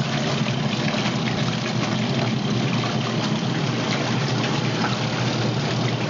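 Two small portable washing machines running together: the Panda twin-tub's spin dryer spinning a load of wet jeans at high speed beside the Panda Mini's washer agitating more gently. The result is a steady motor hum with water splashing and trickling.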